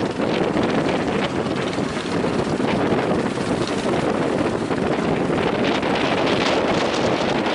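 Strong wind buffeting the microphone, a steady loud rushing noise with gusty flutter.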